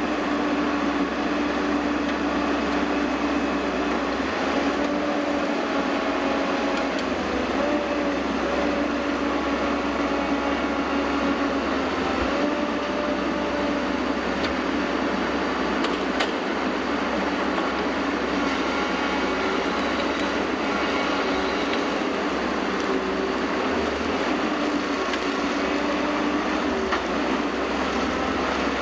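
HSM 405H forest harvester's diesel engine running steadily under load, with tones that shift up and down in pitch as the hydraulics work the boom and harvester head.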